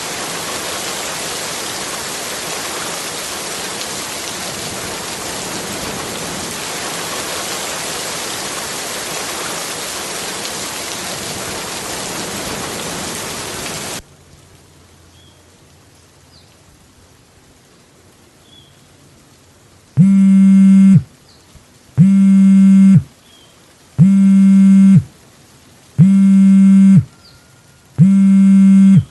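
A steady rushing hiss cuts off suddenly about halfway. Then a mobile phone sounds for an incoming call: five loud, buzzy tones, each about a second long, spaced two seconds apart.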